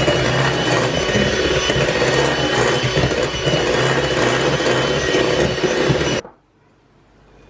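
A small electric motor runs steadily, then cuts off abruptly about six seconds in.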